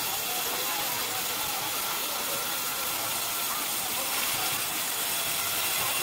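Horizontal band sawmill running, its band saw making a steady, even hiss with no breaks.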